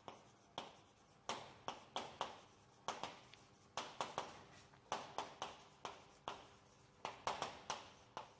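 Chalk writing on a chalkboard: an irregular run of short taps and scratchy strokes, two or three a second.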